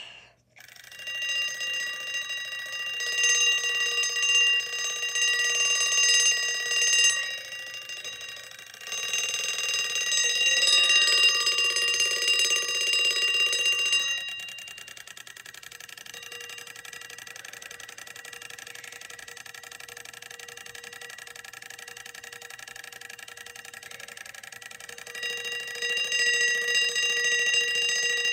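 1964 Westclox Big Ben wind-up alarm clock ringing its bell alarm: a steady, shrill ring that starts about half a second in. It drops much quieter for about ten seconds from the middle, then grows loud again near the end.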